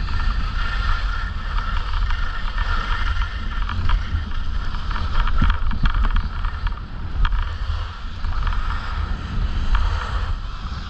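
Wind buffeting the microphone of a downhill skier, with the steady hiss and scrape of skis sliding over packed snow and a few scattered ticks.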